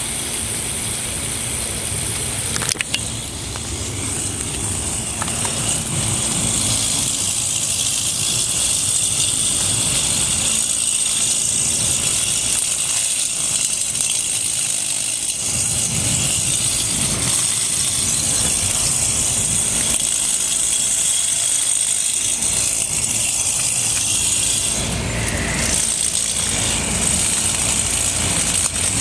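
Electric motor and spinning blade of a homemade K'Nex lawn mower running in grass, a steady high-pitched whine with a low rumble underneath.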